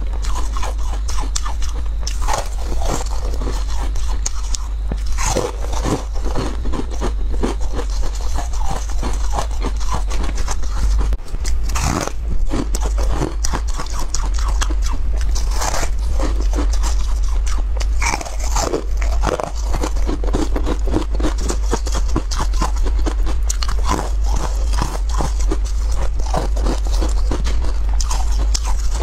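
A person biting and chewing crunchy frozen food close to the microphone, crunch after crunch, over a steady low hum.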